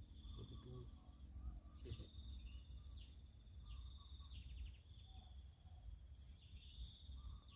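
Faint rural ambience: a steady, high, pulsing insect trill with a few short bird chirps over a low rumble.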